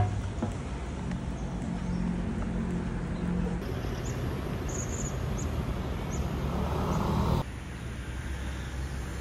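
Outdoor street ambience: a steady low rumble of road traffic, with a sharp click at the very start and a few short high chirps in the middle. The background changes abruptly twice, at the edits between clips.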